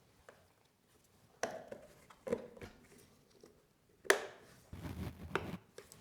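Tools and small metal parts being handled on a workbench: a few sharp knocks and clinks, the loudest about four seconds in, then a short rattling clatter.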